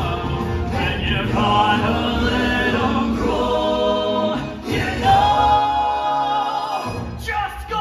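Stage musical number: voices singing over instrumental backing, with long held notes.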